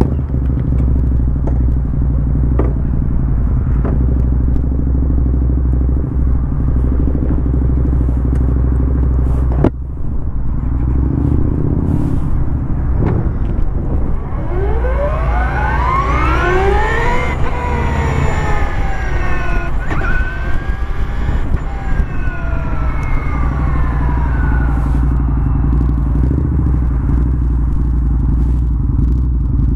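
Steady low motorcycle engine rumble throughout. About halfway through, the whine of a 2016 Victory Empulse TT's electric motor rises in pitch as it pulls away, then falls twice as it slows, dying out a few seconds before the end.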